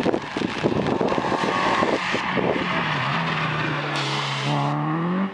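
Renault Clio rally car at speed on a wet stage. Its engine is rough and rapidly pulsing at first, then settles to a steady note that rises as the car accelerates past, with a brief hiss around four seconds in.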